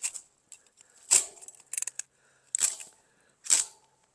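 Hand cutters snipping through a tangle of briars and fencing: four sharp snips, roughly a second apart, with small rustles and rattles between them.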